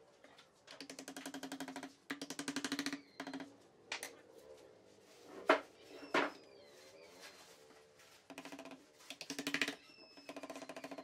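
Bursts of rapid wooden clicking, each about a second long, from a thin wooden strip being worked against a slotted, kerfed wooden ring, with a few sharp knocks in the middle. Faint short bird chirps are heard now and then.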